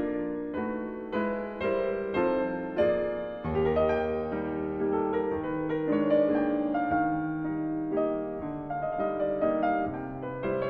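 Background piano music: a gentle melody of evenly paced notes over held bass notes.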